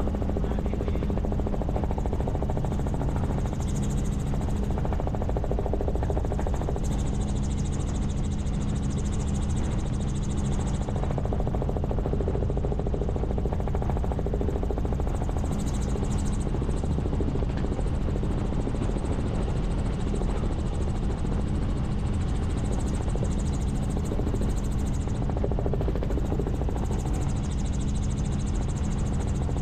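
Helicopter in flight: steady rotor and engine noise, a constant low drone that does not change.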